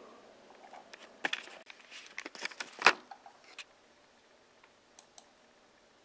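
Background music dies away at the start, then a short run of light clicks and knocks, with one sharper knock about three seconds in, followed by faint room tone.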